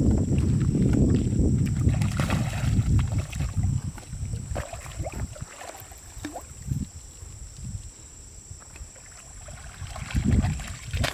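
Hooked carp thrashing and splashing at the surface of shallow water, heaviest in the first few seconds and again briefly near the end.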